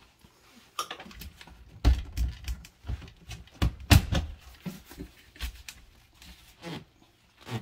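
Irregular plastic clicks and knocks from a PVC condensate-drain fitting and pipe being handled and pressed together with PVC cement. The loudest knocks come about two and four seconds in.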